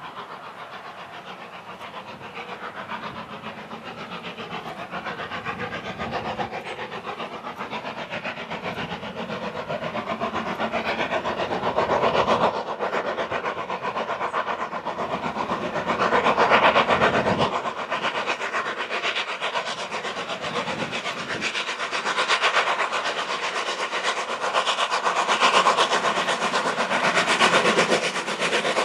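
Steam tank locomotive, the LSWR M7 0-4-4T, working hard with a passenger train: a steady beat of exhaust chuffs with hiss and wheels on rail, growing louder as it approaches.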